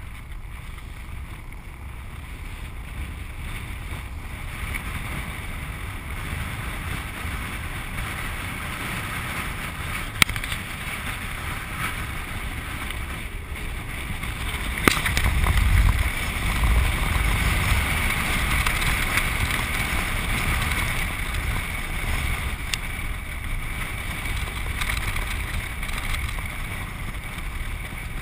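Land sailer under way on a dry lake bed: its wheels rolling over the hard ground and wind on the microphone make a steady noise. It grows louder with a deep rumble about halfway through, and there are two sharp clicks, the second just before the swell.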